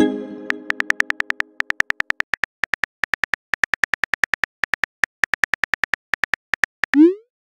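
Phone keyboard typing clicks, several a second, as a text message is typed. A chord-like tone fades away over the first second and a half, and near the end a short rising swoosh sounds as the message is sent.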